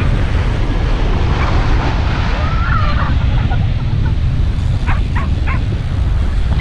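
Strong wind buffeting the microphone over ocean surf washing up the beach, with a few short high calls partway through.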